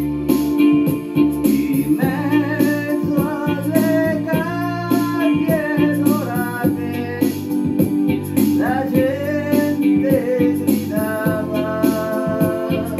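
A song: a voice singing a melody over a band with a steady beat, the voice coming in about two seconds in.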